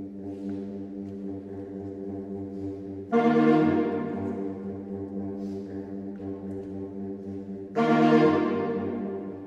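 Saxophone quartet of soprano, alto, tenor and baritone saxophones holding sustained chords. Twice, about three seconds in and again near the end, the chord enters suddenly loud and then fades back.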